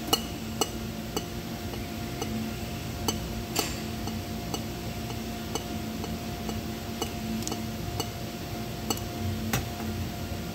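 Trigger-pump oil can being pumped to oil a pneumatic impact wrench, its trigger clicking about twice a second. A steady hum runs underneath.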